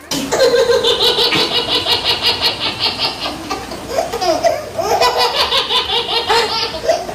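Hearty laughter in quick repeated ha-ha pulses, most likely a laugh added in the edit, since the people on screen are only walking.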